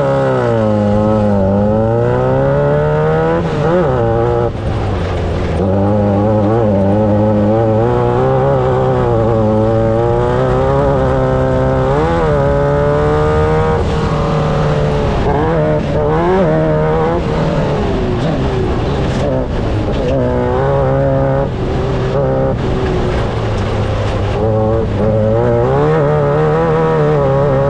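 Off-road race car engine running hard, its pitch climbing and dropping again and again as the throttle is opened and lifted.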